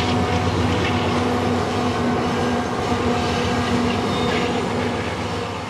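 A loaded coal freight train rolling across a steel bridge: a steady rumble with a droning tone running through it. The sound fades away near the end.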